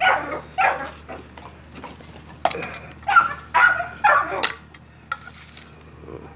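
Pit bull terriers barking in short, loud barks: two near the start, then a quick run of about five after a pause, excited as their food is brought to them.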